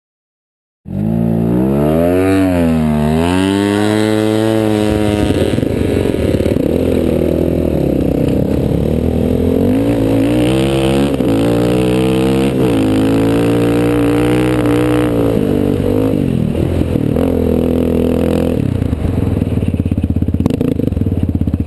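Off-road vehicle engine running and revving, its pitch rising and falling again and again, then settling into a steadier, lower running pattern over the last few seconds. The sound starts abruptly about a second in.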